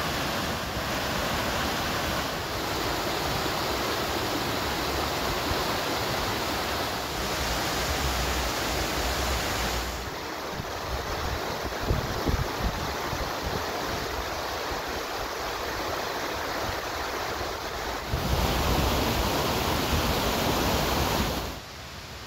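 Mountain stream rushing over rocks, a steady rush of white water, with some wind rumble on the microphone. The rush drops off sharply near the end.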